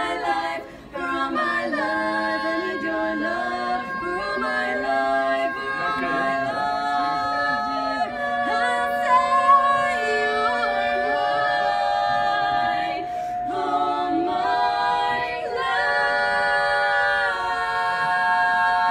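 Five women singing a cappella in close barbershop-style harmony, with no words made out. The chords move and then settle into long held notes, ending on a sustained final chord.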